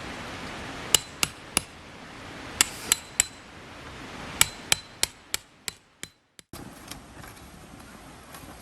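Hammer driving tent pegs into the ground: sharp ringing strikes in quick runs of three, then a run of six evenly spaced blows, over a steady hiss.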